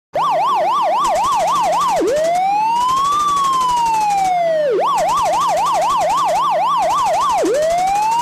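Electronic emergency-vehicle siren starting abruptly. It switches between a fast yelp of about four warbles a second and a slower wail that rises and falls over about three seconds: yelp, wail, yelp, then wail again near the end.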